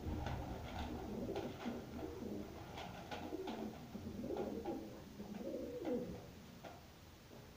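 Domestic pigeons cooing repeatedly, in low rising-and-falling calls, with scattered light clicks. The hungry birds are squabbling over a dish of grain.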